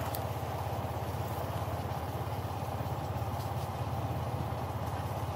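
Vehicle engine running steadily while travelling, an even low pulsing engine note with road and wind noise over it.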